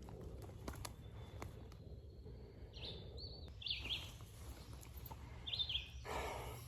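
A small songbird gives a few short chirps over a steady low rumble, with scattered faint clicks and a short burst of noise about six seconds in.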